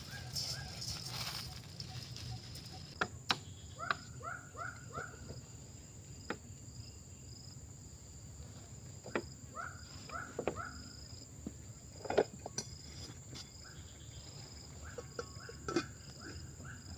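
Insects chirring steadily, one high and even, another in a quick pulsing trill, with runs of three or four short falling calls from some animal three times. A few sharp knocks stand out now and then.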